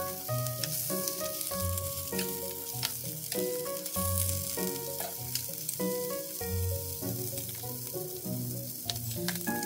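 Bacon-wrapped meat sizzling as it fries in a frying pan, with background music playing over it.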